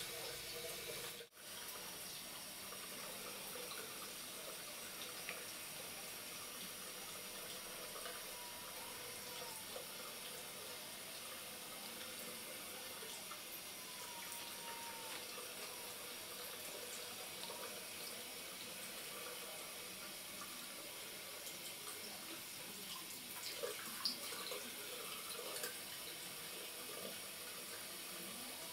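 A thin stream of water runs from a washbasin tap into the sink with a steady splashing hiss. The sound breaks off for an instant a little over a second in. A few small sharp knocks come near the end.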